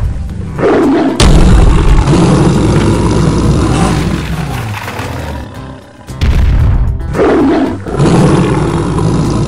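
Tiger roar sound effect, heard twice as two long roars, the second starting about six seconds in, over background music.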